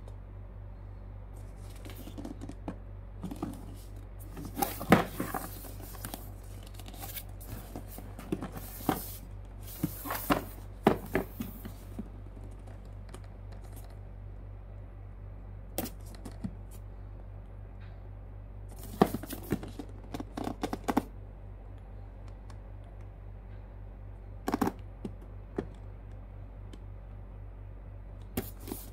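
Hands handling and turning a cardboard motherboard box: scattered clusters of taps, scrapes and rubs of fingers on the cardboard, with quiet spells between. A steady low hum runs underneath.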